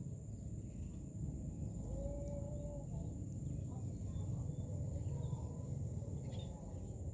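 Myna birds calling: one clear short whistle about two seconds in and scattered faint chirps, over a steady low rumble.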